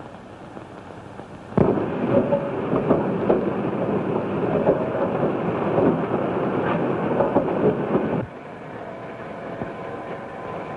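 Loud train noise: a rumbling, hissing run that starts suddenly about a second and a half in and cuts off suddenly about eight seconds in, leaving a quieter low rumble.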